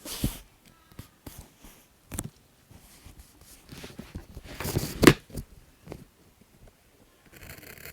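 Stationery and paper being handled on a desk: scattered taps and clicks as items are picked up and set down, and a stretch of paper rustling and scraping that ends in a louder knock about five seconds in.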